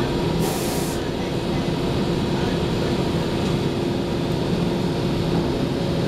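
Detroit Diesel Series 50 engine of a 1994 TMC RTS transit bus running steadily, heard from inside the cabin, with a brief hiss of air from the bus's air system about half a second in.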